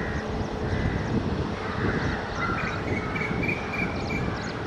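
An approaching electric-locomotive-hauled passenger train, its wheels rumbling steadily on the track. Birds call over it, with crow-like caws and small chirps, and a thin high tone is held for about a second and a half past the middle.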